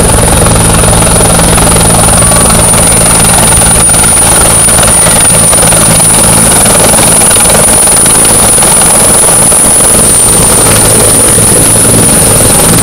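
Turbine helicopter descending to land on a helipad, loud and close: a steady high turbine whine over the low beat of the main rotor.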